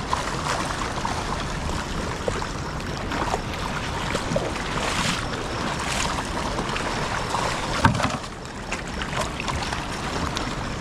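Shallow stream water rushing over rocks, a steady watery rush, with a few louder splashes from wading through it.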